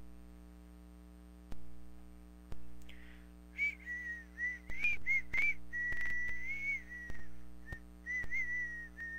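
A person whistling a wavering tune, starting about three and a half seconds in, over a steady low electrical hum. A few sharp clicks come earlier.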